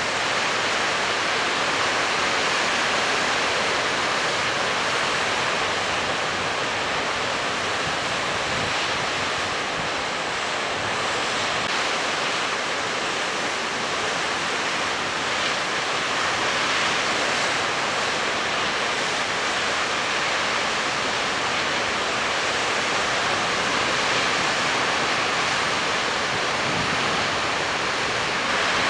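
Heavy storm surf breaking, a steady roar without distinct single crashes.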